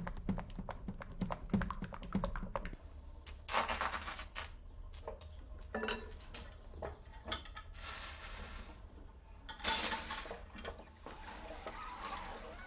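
Kitchen work sounds of batter being stirred and baked in a hinged wafer iron over a fire. First a spoon knocks in quick, even clicks against the bowl, about three or four a second. Then come clinks of metal and several short hissing bursts as batter meets the hot iron plates and the iron is pressed shut.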